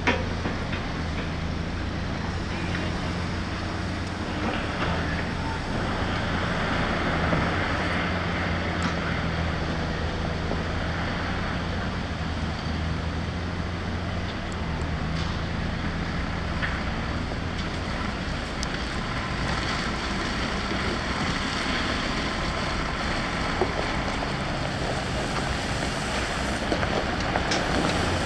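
Diesel engine of heavy earthmoving machinery running steadily, a constant low drone, with wind on the microphone.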